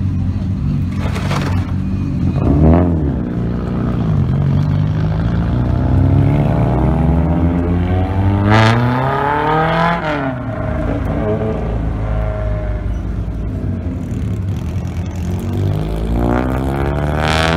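Modified sports cars' engines revving as they drive off one after another, each rev climbing in pitch and then dropping away. The biggest rise runs up to about nine seconds in, and another rev starts near the end.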